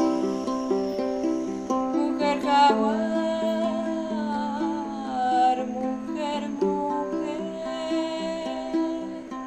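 Ukulele plucked in a slow picked pattern, with a voice singing a few long wavering notes over it from about two seconds in until past the middle.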